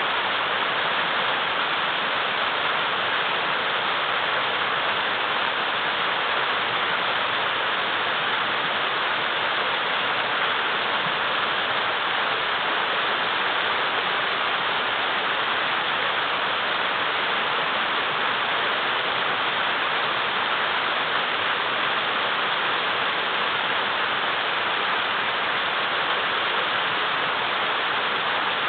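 River water rushing steadily over and between large boulders, a constant even roar of flowing water.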